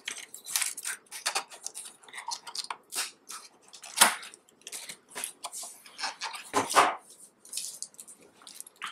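Irregular crinkles and clicks of plastic packaging and small plastic parts being handled, with two sharper knocks about four seconds in and near seven seconds.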